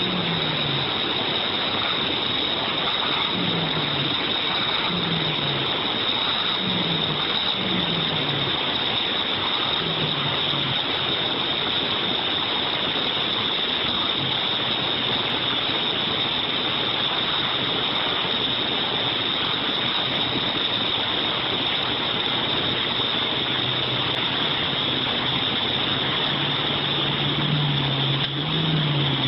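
Heavy truck engine labouring as the log-laden truck fords a fast flooded river, over the steady rush of the water. The engine revs in short falling pulses about once a second for the first ten seconds, then runs at a steadier pitch, rising and wavering again near the end.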